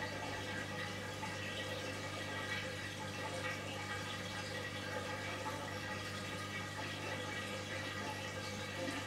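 Electrolux front-loading washing machine with water running through it, a steady rush of water over a low hum.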